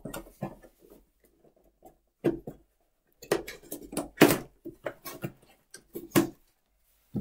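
A small cardboard box being handled and its top flaps pulled open: a run of short scrapes and taps, starting about two seconds in and loudest about four seconds in.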